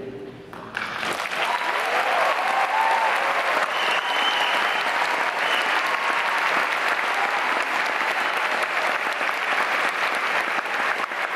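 A large concert-hall audience applauding. It breaks out suddenly just under a second in, right after the choir's final note, then goes on at a steady level.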